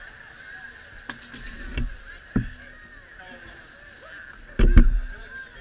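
Knocks and thumps close to the rink boards: a few sharp clacks in the first half, then a heavy deep thump about four and a half seconds in, the loudest sound. A steady background hum runs under them.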